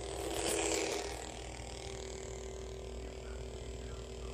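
Darth Vader Force FX Black Series lightsaber's electronic idle hum from its built-in speaker, a steady buzzing drone. It swells louder in the first second as the blade is swung.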